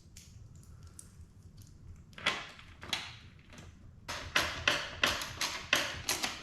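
Hand ratchet clicking as 8 mm bolts are run in: two single clicks, then from about two-thirds of the way through a steady run of quick ratchet strokes, about three a second.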